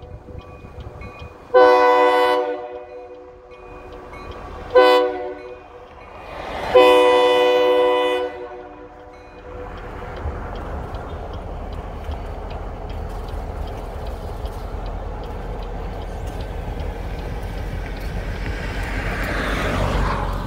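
EMD SD40 locomotive's multi-chime air horn sounding for a grade crossing: a long blast, a short one, then a long one, which completes the long-long-short-long signal. Afterwards a steady low rumble as the locomotive crosses, swelling near the end as a car drives close past.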